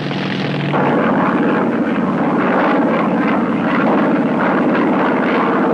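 Propeller-driven aircraft engine running loud and steady with a fast, even pulse. The sound swells up about a second in and then holds.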